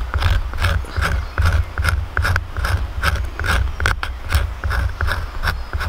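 Knife blade scraping the outer bark of a dead silver birch in quick repeated strokes, about two or three a second, raising fine shavings for tinder.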